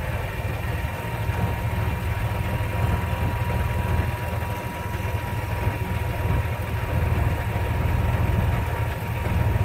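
Car engine and road noise heard from inside the cabin as the car rolls slowly, a steady low rumble, with a faint steady tone that fades near the end.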